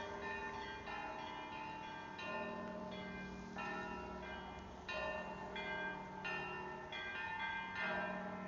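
Russian church bells of the Rostov Kremlin belfry ringing a zvon: several smaller bells of different pitches struck in a running rhythm over a deep bell that keeps sounding underneath.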